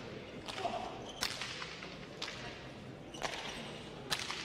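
Sharp cracks of a hard hand-pelota ball in a rally, struck by the players' hands and smacking off the fronton's wall and floor, about five in all, roughly one a second.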